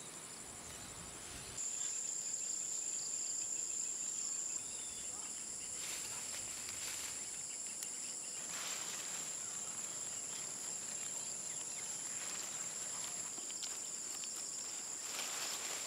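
Steady, high-pitched insect trilling, with a louder trill joining about a second and a half in. Soft rustling comes a few times as plants and soil are handled.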